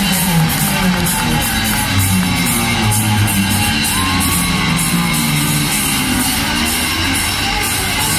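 Hard rock band playing live: an electric guitar lead with bends and slides over bass and a steady drum beat.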